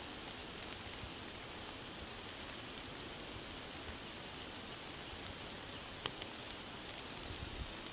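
Steady rain falling through a forest, an even hiss with scattered drops pattering on leaves. There is one sharper drip about six seconds in.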